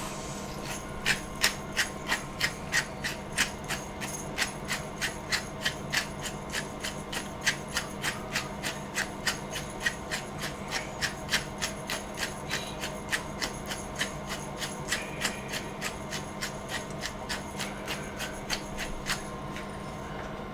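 Hand-twisted spice mill grinding seasoning: a steady run of sharp crunching clicks, about three a second, that stops just before the end. A steady hum runs underneath.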